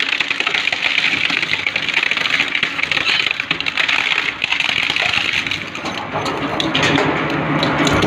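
Industrial shredder tearing and crushing material: a continuous dense crackling and crunching, easing briefly about six seconds in.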